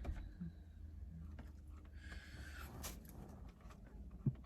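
Faint rustling and a few soft clicks of food and its packaging being handled, over a steady low hum, with one short louder knock near the end.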